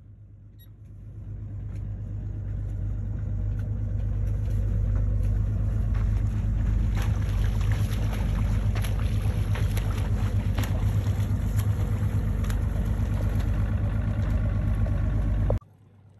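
A motorboat's engine running with a steady low hum, growing louder over the first few seconds, with scattered sharp clicks over it; it cuts off suddenly near the end.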